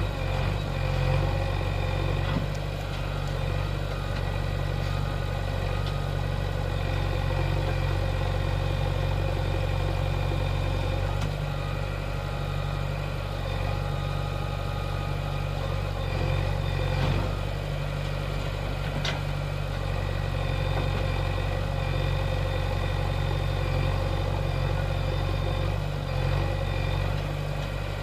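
JCB 3DX backhoe loader's diesel engine running steadily at a fairly even speed, with a few brief knocks.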